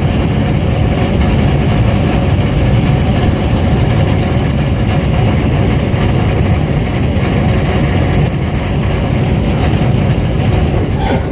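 Work train of flat wagons loaded with long rails rolling past close by: a steady, heavy rumble of wheels and bogies on the rails. A sharp click sounds near the end.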